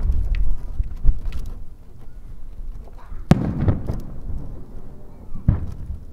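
Aerial firework shells bursting. A low rumble at the start gives way to a sharp crack about a second in, then a loud boom about three seconds in and another near the end, each trailing off in a rumbling echo.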